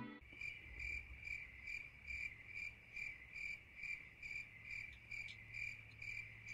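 Cricket chirping faintly and steadily, about three even chirps a second on one high pitch, with a low steady hum beneath.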